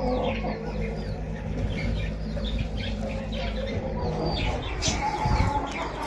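Many short chirps and clucks of penned poultry and small birds, several a second, over a low steady hum, with a brief low rumble about five seconds in.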